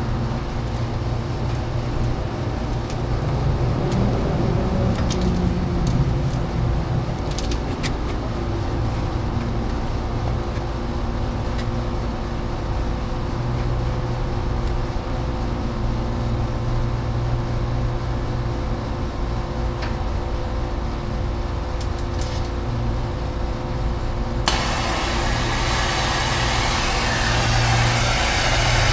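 A steady low engine-like hum with a few light clicks. About twenty-four seconds in, a loud, even hiss of gas starts suddenly and keeps on.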